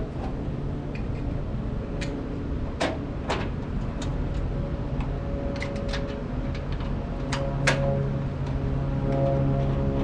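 Sharp metal clinks and clanks of the pizza oven's legs and screws being handled and fitted, about half a dozen, the loudest near the end, over a steady low hum.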